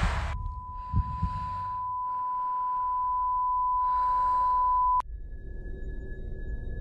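A steady high ringing tone, the film sound-design effect for a stunned character's ringing ears, grows slowly louder over muffled breathy sounds and a couple of dull thumps. It cuts off abruptly at about five seconds and is replaced by a fainter, higher steady tone.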